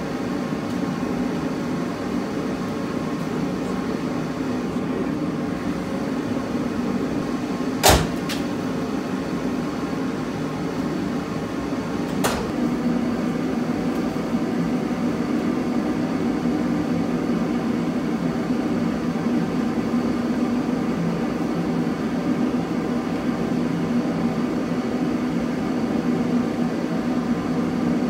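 A steady low machine hum, with a sharp knock about eight seconds in and a fainter click about four seconds later.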